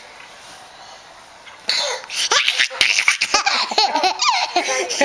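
A sudden loud burst about a third of the way in, then a young child laughing in quick, high-pitched bursts.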